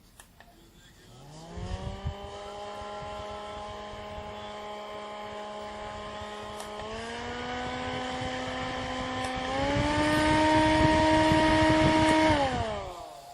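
Small portable fan's motor switched on and spinning up to a steady humming whine, then stepped up twice to faster speeds, the pitch rising and the sound getting louder each time. It is switched off and winds down shortly before the end.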